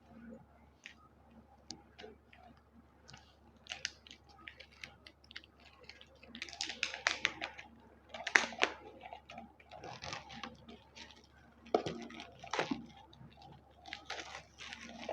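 A sketchbook's packaging being opened by hand. Scattered light clicks and taps, then from about six seconds in, crinkling and rustling in several bursts.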